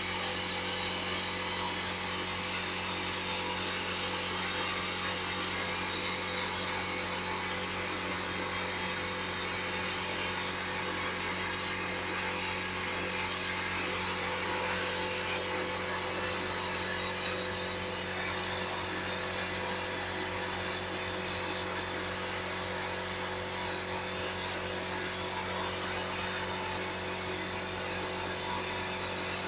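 Sandblasting gun blasting abrasive at a masked glass panel, frosting it through a printed UV mask: a continuous, even hiss of air and grit over a steady low hum.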